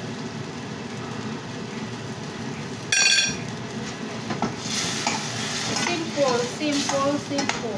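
Food sizzling in a frying pan over a gas burner as it is stirred with a utensil, with a steady frying hiss. About three seconds in comes one short, loud ringing clink.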